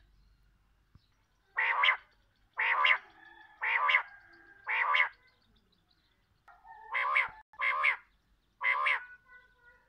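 Rain quail calling: seven short, loud call notes, four spaced about a second apart, then after a pause of about two seconds three more.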